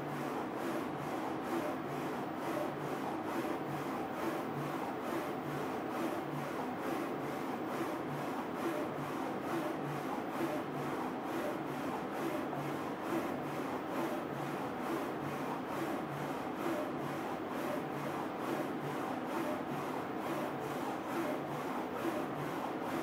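Focus Alpha-Jet A2 UV printer running a print job on a mug in its rotary jig. The print-head carriage shuttles back and forth in a steady rhythmic swish, about three passes every two seconds, over a constant machine hum.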